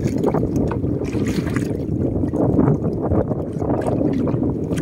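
Wind rushing over the microphone and water slapping against the hull of a small outrigger boat, with a few faint clicks.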